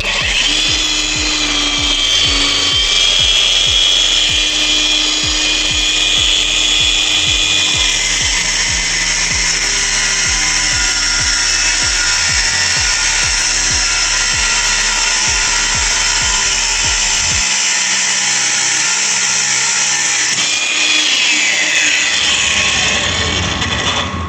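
A 125 mm electric angle grinder running with a steady high whine; its pitch drops briefly near the end.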